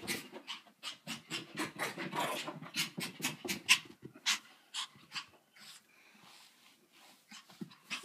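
Small dog making quick, noisy, irregular breaths, about three or four a second, the weird sounds it makes while rolling and thrashing on the carpet. The breaths thin out after about four seconds, and a few more come near the end.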